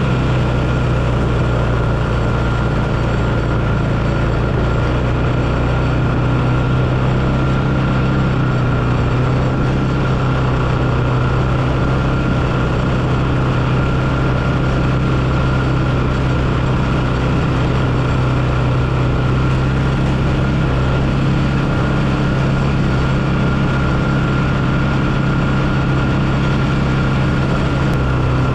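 Four-wheeler (ATV) engine running at an even speed while riding, a steady low drone with a thin whine above it and no revving up or down.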